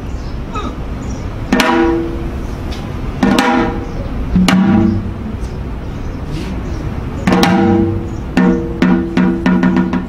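Janggu (Korean hourglass drum) played as dance accompaniment: single ringing strokes a second or more apart, then a quicker run of about five strokes near the end.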